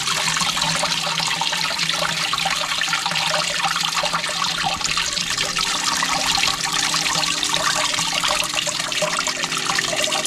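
Steady rush and trickle of water flowing through a miniature 3D-printed stackable sluice, washing pay dirt across its textured mat.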